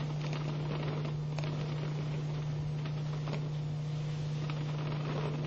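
A steady low hum, with a few faint soft rustles.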